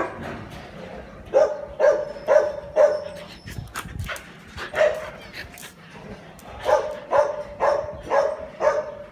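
Siberian husky barking in short, high yips, about two a second: a run of four, a single one, then a run of five.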